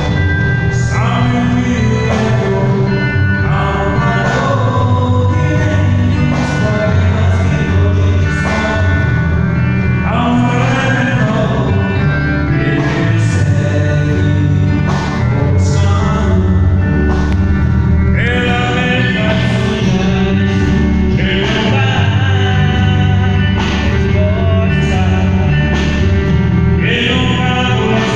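A band playing a song with singing over it: sung melody over bass and drums keeping a steady beat.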